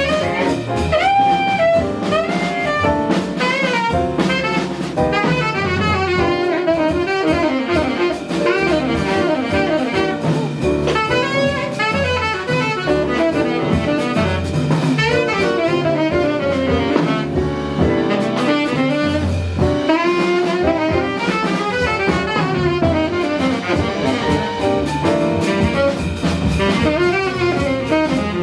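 Jazz combo playing live: a saxophone leads with a quick-moving melodic line over drum kit and double bass.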